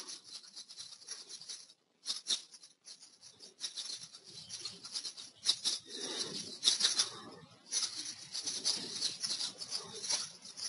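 Computer keyboard typing: quick runs of key clicks broken by short pauses.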